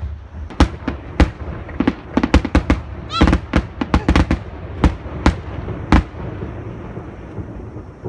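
Fireworks bursting overhead: a rapid string of sharp bangs, some in quick clusters, about fifteen in five seconds. The last comes about six seconds in, followed by a rumbling echo.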